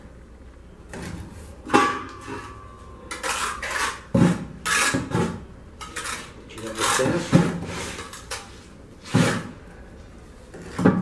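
Steel mason's trowel scraping and clinking against a metal mortar box and through cement mortar, in irregular strokes with a few sharper knocks.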